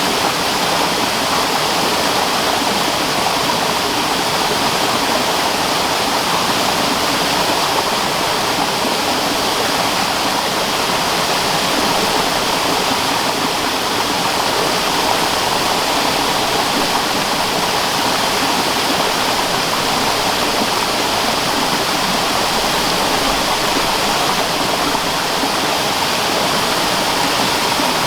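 Water from a spring-fed stream running and splashing steadily, a constant loud rushing with no breaks.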